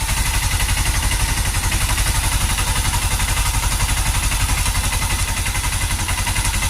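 Honda CG150 Cargo's single-cylinder four-stroke engine idling steadily with an even, rapid beat. It runs without the rattle it had before: its loose camshaft sprocket bolt has been tightened and the timing chain and valves adjusted.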